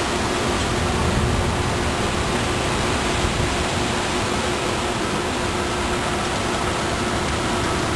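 Steady rushing storm wind, with a low rumble and a faint steady tone underneath.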